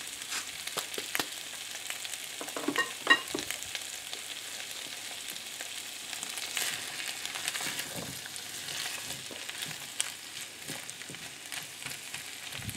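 Sliced potatoes, peas and onion sizzling gently in olive oil in a frying pan, with a silicone spatula stirring and turning them in the second half. A few short clicks about three seconds in.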